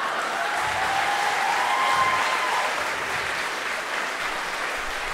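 Audience applauding: dense, steady clapping that eases slightly toward the end.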